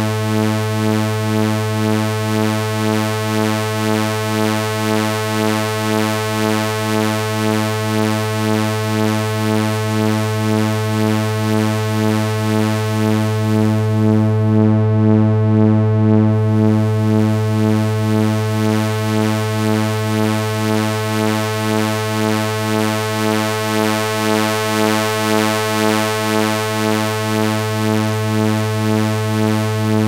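Erica Synths SYNTRX analog synthesizer sounding a steady low buzzy drone rich in overtones, pulsing evenly, as its output filters are turned. About halfway through, the highs are filtered away for a couple of seconds and then open up again.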